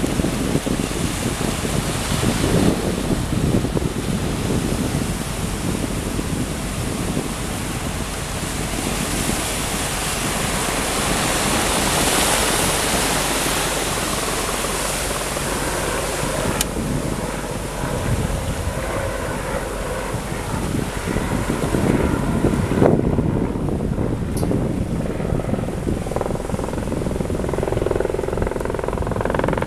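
Wind buffeting the microphone over the wash of sea waves, a steady rushing noise. Its high end drops away about two-thirds of the way through.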